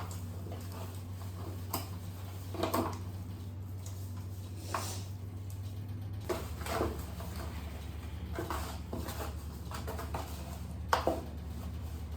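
Scattered soft knocks and clinks of dishes being handled while raw chicken is seasoned by hand, over a steady low hum.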